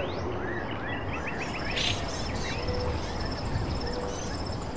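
Birds chirping outdoors, with short rising calls in the first two seconds and a brighter burst of chirps about two seconds in. A high, rapid, evenly pulsed trill, like an insect's, runs through the rest, over a low, even background rumble.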